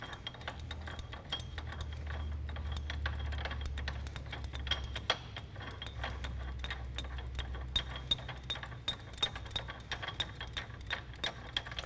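Inner adjusting nut of a Stemco double-nut wheel end being turned off the axle spindle by hand: a long run of faint metallic clicks and clinks, over a low steady hum.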